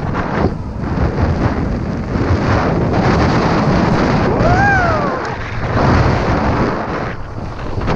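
Wind buffeting the camera's microphone and skis hissing through deep powder on a fast descent, a loud, gusting rush with a deep rumble. About four and a half seconds in, a short tone rises and then falls.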